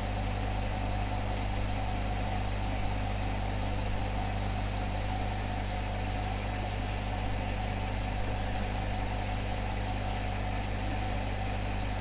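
Steady electrical hum and hiss from a noisy microphone recording: a low drone with a few thin, unchanging whine tones over an even hiss, the background noise of the headset microphone input.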